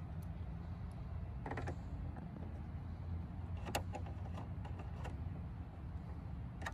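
A few small metal clicks and light scrapes of bolts and hardware being fitted by hand into a rear spoiler's mounting brackets, the sharpest click a little before four seconds in, over a steady low background rumble.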